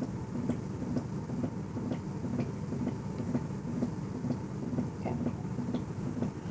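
A steady, low mechanical rumble pulsing about three times a second, with scattered faint clicks.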